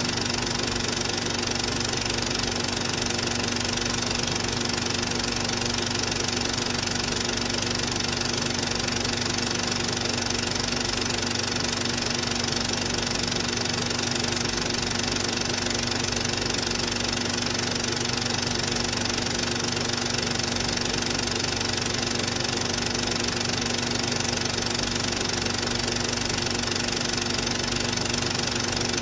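Cine film projector running: a steady mechanical whirr with a low hum.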